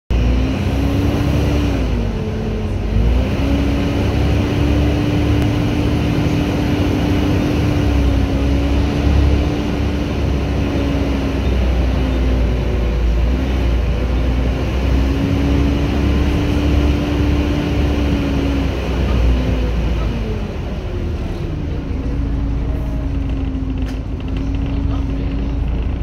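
Volvo B7TL double-decker bus running along the road, heard from the upper deck: a low rumble under a steady drivetrain whine, the 'hoover' sound, which sags in pitch and comes back up a few times as the bus slows and picks up again.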